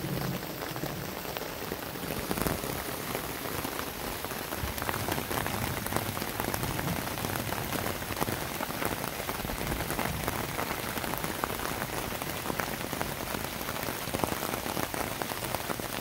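Steady rain from a thunderstorm falling through a forest, with a dense scatter of separate drops hitting the leaves and the ground.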